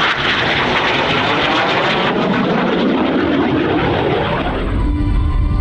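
Aermacchi MB-339 jet flying past, a loud rushing jet-engine sound whose pitch sweeps down over a couple of seconds midway. Near the end the jet sound drops away and music starts.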